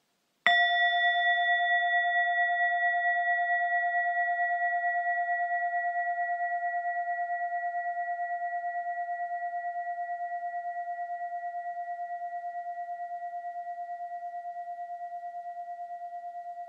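Singing bowl struck once about half a second in, then ringing on as a long, slowly fading tone with a gentle pulsing waver.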